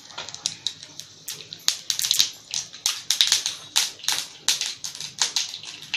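Mustard seeds popping and spluttering in hot oil in a steel wok for a tempering: irregular sharp pops, several a second.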